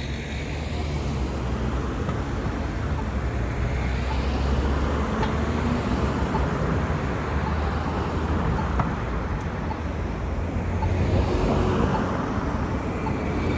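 Road traffic going by: a steady rumble of engines and tyre noise that swells twice as vehicles pass.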